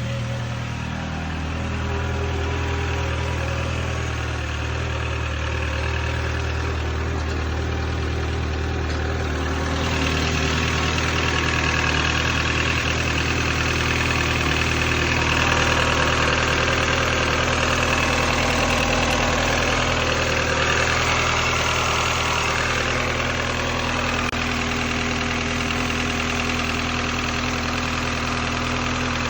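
N12 engine idling just after a cold start, with a steady knocking rattle: piston slap from the pistons rocking in their cylinders while the engine is cold. About ten seconds in the rattle becomes brighter and a little louder.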